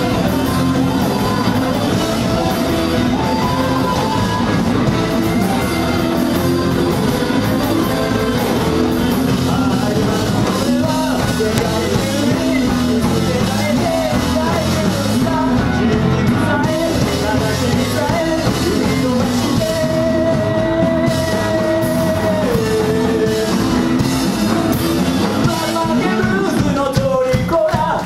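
Live rock band playing with a lead singer over drum kit and amplified instruments.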